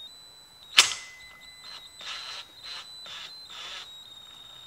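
One sharp metallic click with a brief ring, about a second in, as the valve spring compressor is backed off the K24 cylinder head and the spring retainer seats on its keepers. It is followed by five short rasps of metal as the compressor's screw is turned.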